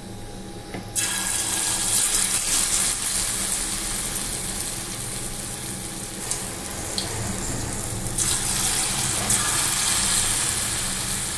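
Rice-flour and onion batter sizzling as it deep-fries in hot oil in a kadai: the hiss starts suddenly about a second in as the first spoonful goes in, and grows brighter again about eight seconds in as more batter is added.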